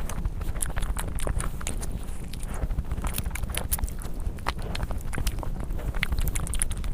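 Close-miked eating sounds: chewing with many irregular short clicks and smacks of the mouth and food, over a steady low rumble.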